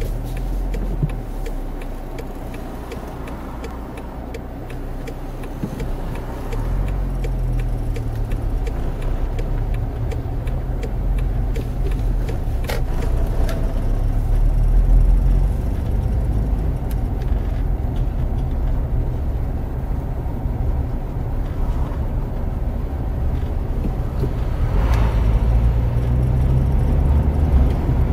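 A car driving, heard from inside the cabin: steady engine and road noise, with the engine note shifting several times as the car changes speed.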